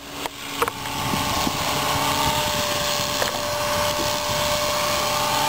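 Align T-Rex 250 electric RC helicopter in a hover: a steady whine from its motor and spinning rotor blades, with a hiss of rotor wash. The sound grows louder over the first second, then holds steady.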